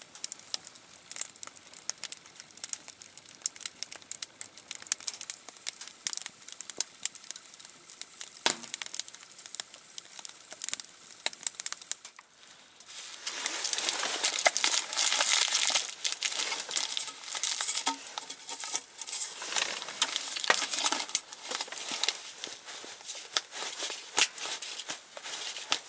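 Wood fire crackling in a small sheet-metal tent stove, a dense run of snaps and pops with rustling. It grows clearly louder about halfway through for several seconds, then settles back.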